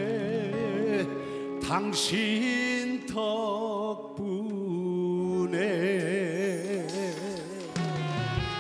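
Music from a trot song: a melody with strong vibrato on long held notes over the backing band.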